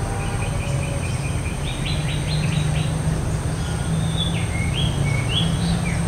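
Common iora (Aegithina tiphia) singing: a quick string of short notes, then a burst of about six rapid sharp notes, then a few whistled notes that slide down and back up, over a steady low background rumble.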